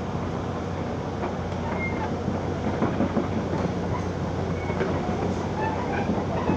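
Backhoe's diesel engine running steadily as the machine travels, a constant low hum under a noisy rattle of the machine.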